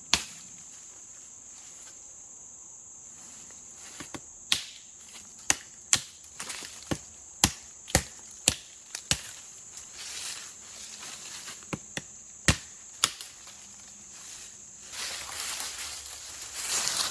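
Insects, crickets or similar, chirring as a steady high-pitched drone. Over it come a dozen or so sharp separate clicks or snaps in the middle, then rustling near the end.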